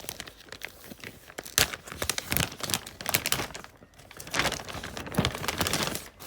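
Protective packaging being crumpled and pulled away by hand, in two bursts of dense crinkling and crackling with a short lull between.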